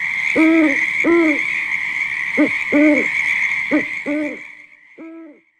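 Owl hooting sound effect: about seven low, arched hoots, several in short-then-long pairs, over a steady high hiss. It all fades out near the end.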